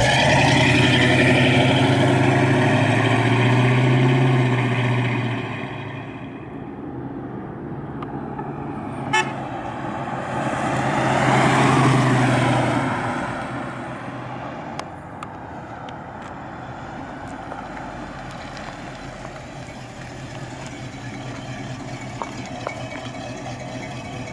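1969 Camaro SS's 350 small-block V8 running through its dual exhaust, loud and steady at first. About halfway through, the car drives past: the engine sound swells, then fades. It settles to a quieter steady drone as the car drives on.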